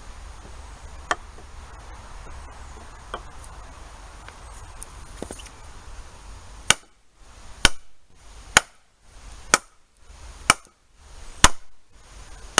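Hard blows striking a chunk of ash wood to split it: a few light knocks at first, then, from a little past halfway, a steady run of sharp strikes about one a second.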